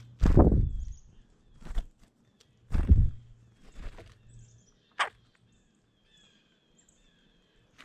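Dull thumps and knocks at irregular intervals, five or six in all, close to the microphone, from birds at a feeder. Faint short chirps of small birds sound between them, most in the quieter second half.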